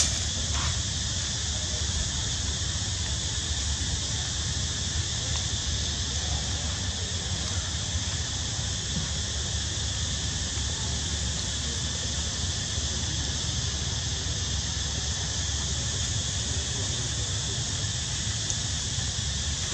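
Steady chorus of buzzing insects, a high even drone that does not change, over a low steady rumble.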